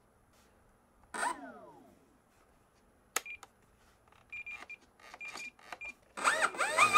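Short, high electronic beeps and a click from the Spektrum NX10SE radio as it is worked, with a falling electronic tone about a second in. Near the end the aileron servos of an E-Flite Cherokee model plane buzz in wavering pitches as the SAFE stabilization corrects for the wing being tilted.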